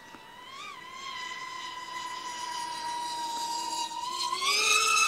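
FPV racing quadcopter's brushless motors whining steadily as it flies fast and low. About four seconds in the whine rises in pitch and gets louder as the throttle is pushed up into a climb.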